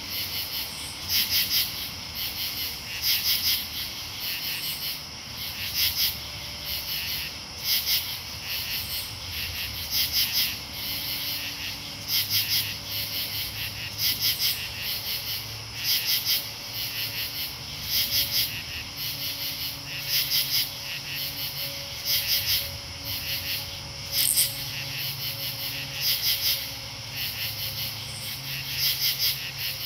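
Katydids calling: short bursts of a few quick pulses, about one burst a second, alternating between louder and fainter callers, over a steady high insect chorus.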